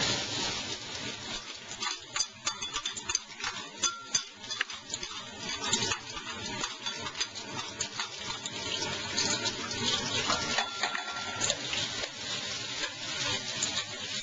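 Garlic frying in hot oil in a pan: a steady sizzle with many small crackles and pops.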